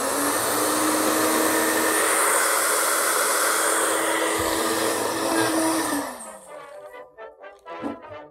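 Original Magic Bullet blender motor running with an empty cup locked down for continuous blending: a steady loud whine for about six seconds, which then winds down with falling pitch as the cup is released.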